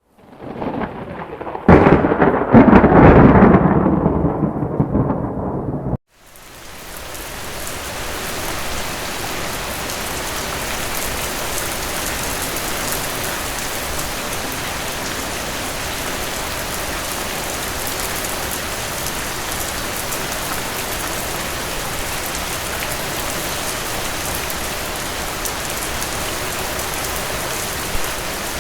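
A close thunderclap cracks about two seconds in and rumbles, fading, until it cuts off abruptly about six seconds in. Steady rain then fades in and keeps up an even hiss.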